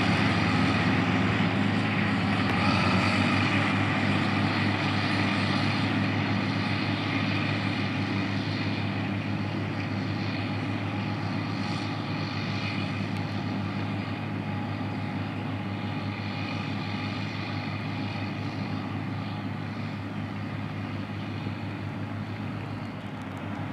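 John Deere 4955 tractor's six-cylinder turbo diesel running steadily under load while pulling a lime spreader, fading gradually as it moves away.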